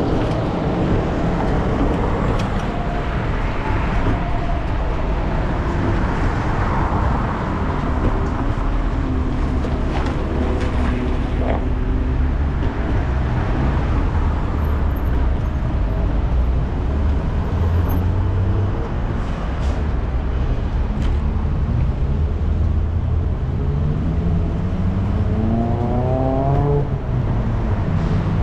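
Road traffic: motor vehicles running and passing under a steady low rumble. Near the end, one vehicle's engine rises steadily in pitch as it accelerates.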